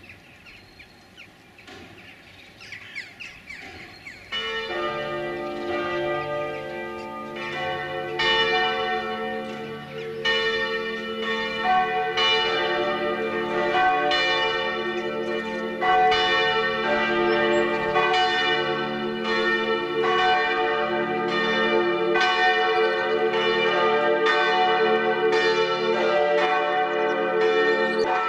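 Several abbey church bells start ringing about four seconds in and keep pealing, fresh strokes every second or two overlapping into a continuous ringing chord. Before they start there is only faint outdoor sound.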